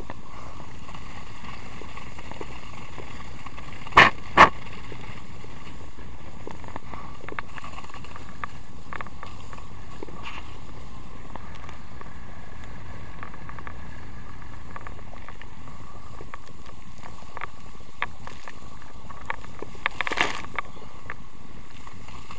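Steady rushing noise of a water ski skimming fast over the lake, with wind on a GoPro in its housing. Two sharp knocks come about four seconds in, and a few smaller knocks come near the end.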